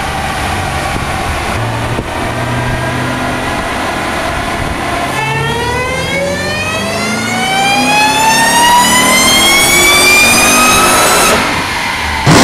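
Supercharged car engine running steadily, then accelerating, with the supercharger's high whine climbing smoothly in pitch for about six seconds before cutting off suddenly near the end.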